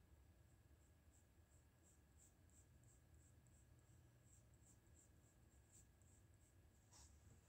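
Faint scratching of a pencil on drawing paper as short sketching strokes are drawn, with a slightly louder scrape near the end.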